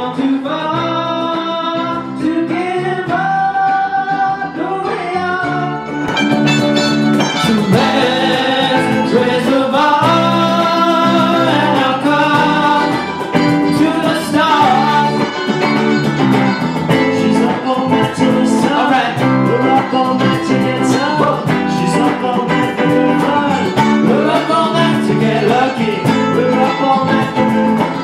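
Small rock band playing live: a man singing over electric guitars and electric bass. About six seconds in the sound fills out and cajon strikes come in.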